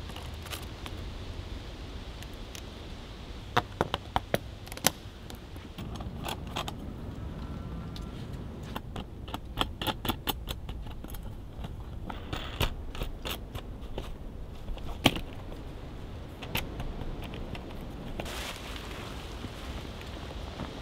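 Small metal parts clicking and clinking as the bolts and nuts of a stove-jack's metal flange ring are fitted and hand-tightened through the canvas tent wall: clusters of sharp clicks with a brief metallic ring in between. A short rustle near the end.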